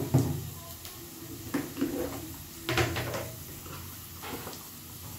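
Kitchen clatter: a few scattered knocks and clunks of things being handled and set down, the loudest near the middle.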